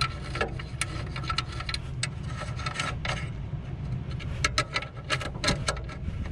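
Irregular metallic clicks and ticks of a wrench working the motor-mount nuts of a belt-driven exhaust fan, tightening them to take up a loose drive belt, over a steady low hum.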